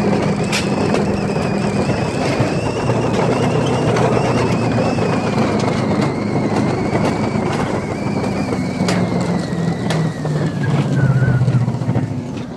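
Mountain coaster sled running on its tubular steel rails: a loud, steady rolling rumble and rattle with a few sharp knocks, and a high whine that falls in pitch over the last few seconds as the sled slows into the station.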